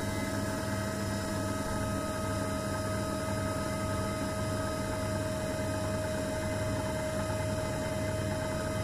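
JFJ Easy Pro disc repair machine running a 20-second sanding cycle, its motor spinning a scratched game disc against soft sandpaper. A steady, not too loud hum with a steady whine over it.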